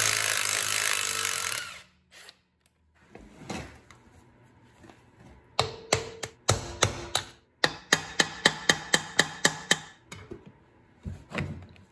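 A cordless power tool with a socket runs on a differential cover bolt for about two seconds. After a pause come two quick runs of sharp metal-on-metal hammer blows, about five a second, as a pry tool is driven into the seam of a Dana 30 axle's differential cover to break its gasket seal.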